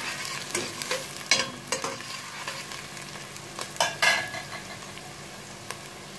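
Chopped onions frying in melted ghee in a stainless steel pot, sizzling steadily. A spoon scrapes and knocks against the pot several times as they are stirred, and this stops about four seconds in, leaving only the sizzle.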